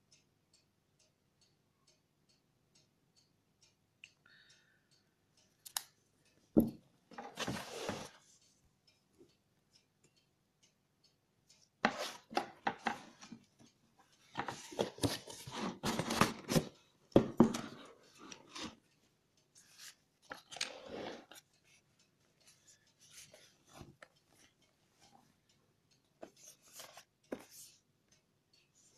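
Packaging being handled: irregular bursts of rustling and crinkling from the thin protective sheet over the laptop and the cardboard box, with a couple of sharp knocks. A faint regular ticking runs through the first few seconds.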